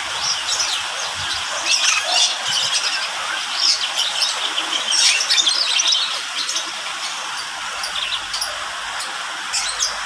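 Mixed cage birds in an aviary chirping and calling, short high chirps coming again and again from several birds at once, over a steady hiss of rain.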